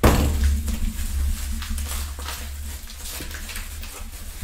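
Bubble wrap and cardboard being handled and pulled apart as a card is unwrapped: plastic crinkling and rustling, loudest in a sudden rustle right at the start, then many small crackles that slowly die down.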